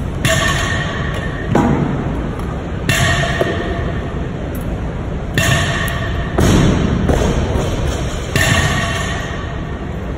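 Metal weight plates clanking on a barbell sleeve as a plate is slid on and a spring collar clamp is fitted: several sharp metallic clanks, some ringing briefly, over a steady background hum.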